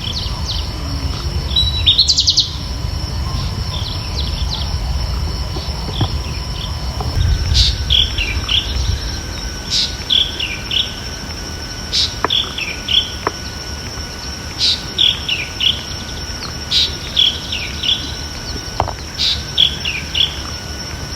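Birds chirping: one bird repeats a short phrase of high, quickly falling chirps about every two seconds from about seven seconds in, with a brief buzzy trill near the start. A steady high whine and a low background rumble run underneath.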